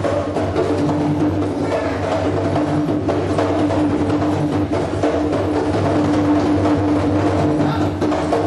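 Senegalese serouba hand drums played by an ensemble in a dense, fast rhythm of hand strikes, with a steady held tone underneath.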